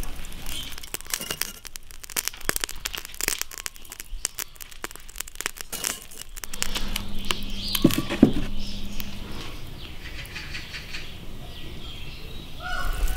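Burning charcoal crackling and popping in a clay stove, with a few knocks about eight seconds in as tongs set fresh charcoal pieces on the fire.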